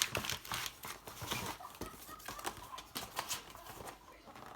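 Irregular clicks and knocks of hard car parts being handled, with light rustling of their packaging as the box is unpacked by hand.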